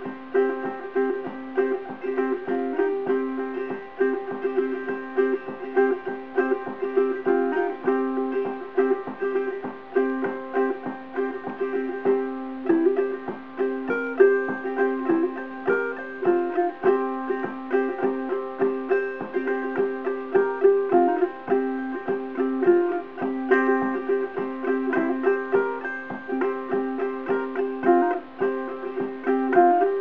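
Solo tenor ukulele with a redwood top and myrtle back and sides, strung with Worth Clear strings, playing a bluegrass-style Appalachian tune. A quick, steady run of picked notes rings over two notes sustained underneath.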